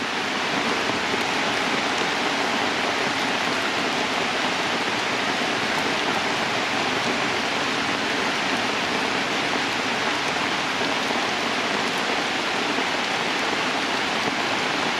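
Heavy rain falling steadily: a dense, even hiss of downpour on wet ground and stone.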